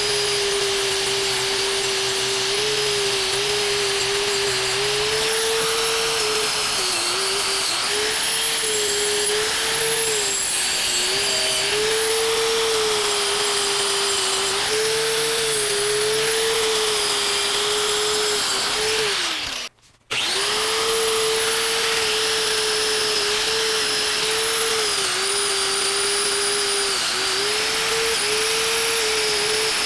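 Motor-driven wire brush running steadily against forged steel, a constant whine that dips a little in pitch now and then. It drops out for a moment about two-thirds of the way through, then carries on the same.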